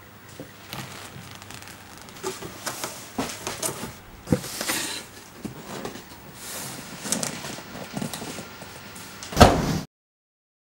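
Rustling and scattered light knocks as a knit sweater is folded and handled with plastic wrapping and cardboard on a worktable. One louder thump comes near the end, and the sound cuts off suddenly.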